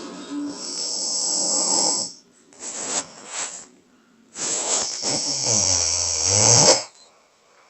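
A person snoring: three noisy breaths, a long one, a short broken one, then a long loud one carrying a low-pitched snore through its second half that cuts off a little before the end.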